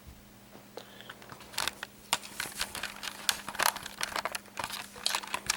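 Sealed plastic packaging being pulled and worked open by hand: quiet at first, then from about a second and a half in, a quick irregular run of sharp crinkles and crackles.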